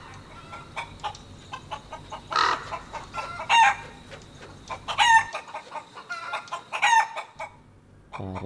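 Chickens clucking: four short calls, each falling in pitch, a second or so apart, over a scatter of faint clicks.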